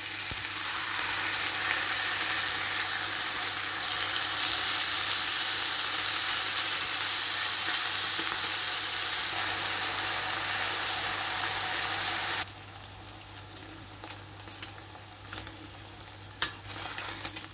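Beef entrecôte steaks sizzling in a hot nonstick frying pan. The loud, even sizzle drops off abruptly about twelve seconds in to a quieter sizzle, and a few sharp clicks of the metal tongs against the pan come near the end.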